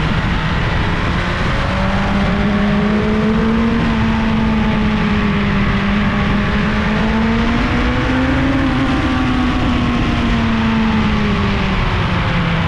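1987 Suzuki GSX-R1100's oil-cooled inline-four running on the move. Its pitch rises about a second and a half in, wanders gently up and down, and drops near the end.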